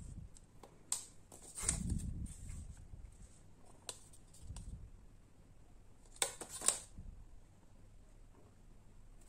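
Close handling sounds of yarn and a ruler being worked by hand: soft rustling with a few light clicks and taps, the sharpest pair about six and a half seconds in.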